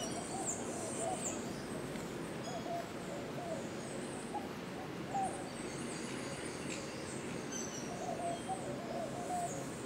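Birds calling: short low hooting notes scattered throughout, with thin high chirps near the start and end, over a steady background noise.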